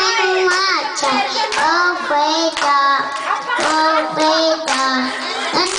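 Young girl singing into a handheld microphone without backing music, her voice gliding between notes and holding some of them for about half a second. Short sharp sounds come about once a second.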